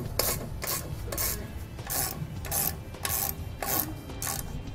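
Hand socket ratchet tightening a trailer disc brake caliper's mounting bolt, giving a short burst of ratchet clicks on each back swing, about twice a second.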